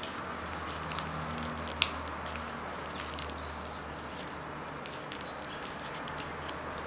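Origami paper being folded and pressed by hand: soft rustling with scattered sharp crinkles, the loudest just under two seconds in, over a steady low hum.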